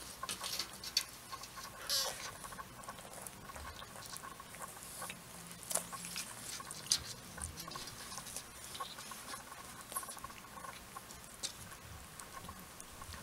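Four-week-old exotic kittens play-wrestling on a textured mat: soft scuffling and patting of paws and fur, with many short scratches of small claws scattered throughout.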